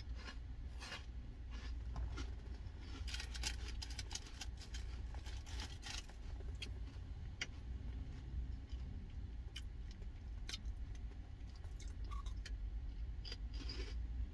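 A person chewing and crunching food, with small clicks and scrapes from handling the food and its packaging, busiest a few seconds in, over a low steady rumble from the car.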